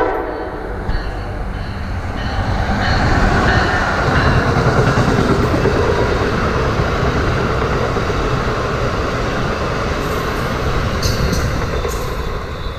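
Amtrak passenger train of Amfleet coaches passing at speed behind an electric locomotive: a horn blast cuts off right at the start, then a steady rush and rumble of steel wheels on the rails builds about two seconds in and stays loud as the coaches go by. A few sharp clicks come near the end.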